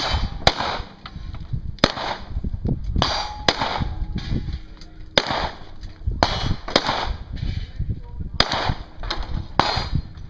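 Smith & Wesson M&P pistol firing about a dozen shots at an irregular pace during an IDPA course of fire, several of them as quick pairs about half a second apart.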